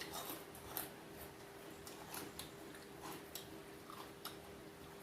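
Close-up chewing of crispy fried food: scattered crisp crunches and clicks, a few a second, over a faint steady hum.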